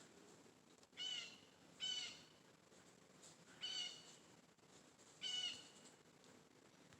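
A bird calling four times, short calls about a third of a second each, spaced one to two seconds apart.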